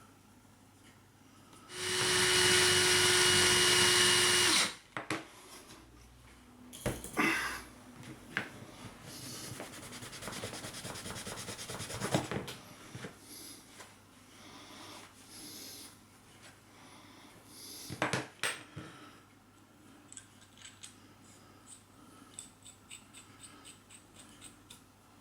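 Cordless drill spinning a brass wire brush for about three seconds and then stopping, followed by several seconds of rubbing or scrubbing and scattered small clicks from handling the screwdriver parts.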